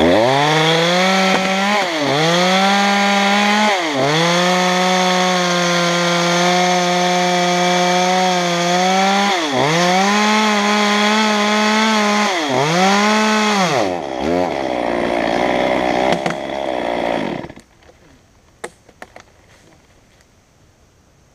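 Stihl chainsaw running at full throttle while cutting into an oak log, its pitch dipping briefly several times as the cut loads it. About fourteen seconds in it drops to a low run and goes quiet a few seconds later, followed by a few faint clicks.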